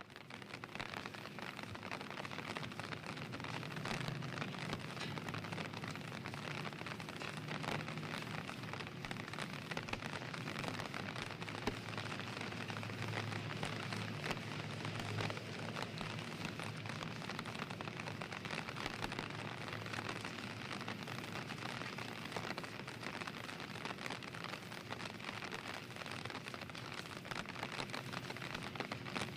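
Steady rain falling, a dense even hiss of many small drops striking a surface.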